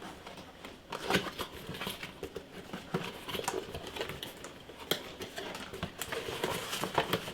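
Hands unpacking a CPU cooling fan from its packaging: irregular clicks, taps and rustling of plastic and cardboard, with a few sharper knocks.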